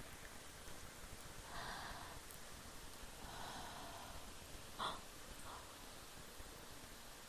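A woman yawning quietly: two long breathy swells of breath, then a short sharp breath or mouth sound about five seconds in.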